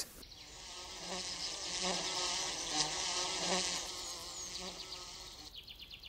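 A bee buzzing, swelling in loudness and then fading away, with a few faint high chirps.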